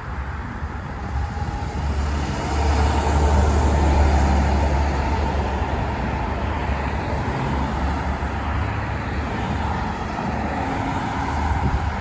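A 2002 Blue Bird International 3800 school bus passes close by, its diesel engine and tyres loudest about three to four seconds in. Passenger cars keep passing on the road after it.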